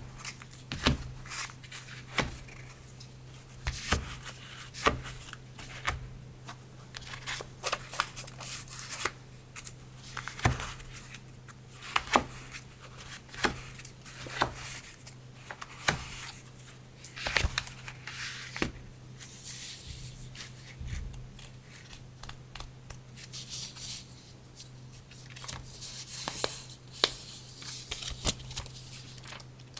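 Hands handling paper and stationery items: irregular taps and clicks about once a second, with stretches of paper rustling, strongest near the end. A steady low hum runs underneath.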